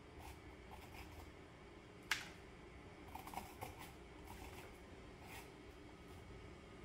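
Spoon scraping the seeds and stringy pulp out of a halved raw spaghetti squash: faint, soft scrapes, with a sharp click about two seconds in and a few quicker clicks a second later.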